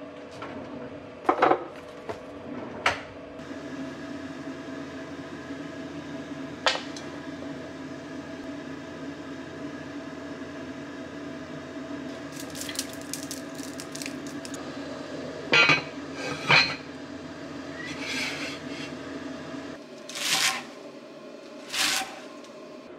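Kitchen work over a steady low hum: a few sharp clinks of pot and utensils and two louder knocks, then a chef's knife chopping garlic chives on a wooden cutting board, about one chop every second and a half near the end. The hum stops just before the chopping.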